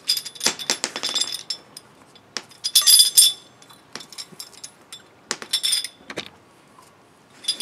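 Steel bearing balls of a worn CV joint clinking against the race and cage as the joint is pivoted to free them, some dropping out onto concrete. It comes in several short bursts of bright metallic clinking with a ringing tail.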